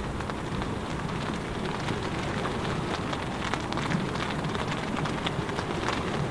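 Heavy rain falling: a steady hiss with many sharp individual drop taps.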